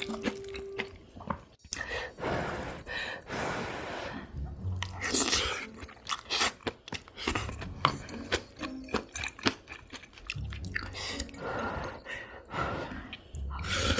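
Close-miked chewing with crunchy bites of food, coming in irregular crisp bursts.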